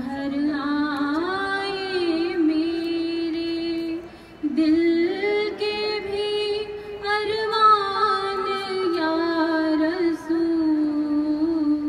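A naat sung by a single woman's voice in long, drawn-out notes that bend and waver, with a short pause for breath about four seconds in.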